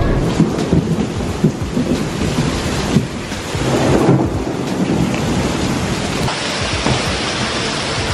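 Heavy thunderstorm downpour: dense, steady rain pouring onto pavement and parked cars, with thunder rumbling.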